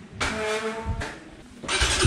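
After a short held tone, a motorbike engine is started near the end and settles into a steady idle with a fast, even pulse.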